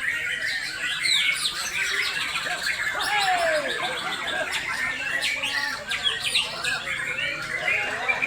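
Several white-rumped shamas (Bornean murai batu) singing over one another at once, a dense, unbroken tangle of whistles, trills and chirps, with one longer falling whistle about three seconds in.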